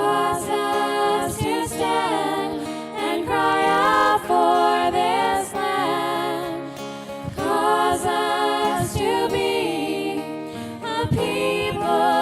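Worship song: a sung melody over instrumental accompaniment.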